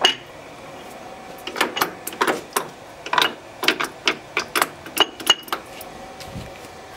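Irregular run of sharp metallic clacks, about fifteen over four seconds starting a second and a half in, from the straight-cut gears in the open headstock of a worn 1938 turret lathe as the spindle and levers are worked by hand.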